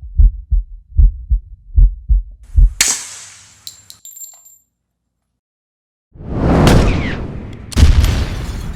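Edited sound effects: deep thumps in pairs like a slow heartbeat, then a bright metallic ring with a high tone that fades. After a short silence, loud rumbling booms start about six seconds in.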